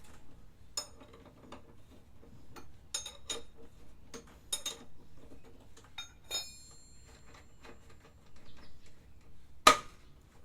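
Metal hand tools clicking and clinking while work goes on at a scooter's front wheel, with scattered light knocks, a short ringing metallic clink about six seconds in, and a sharp knock near the end.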